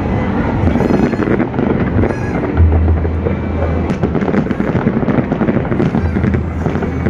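Fireworks display going off: a dense, continuous crackling and popping from many fireworks at once, with deeper low booms at times.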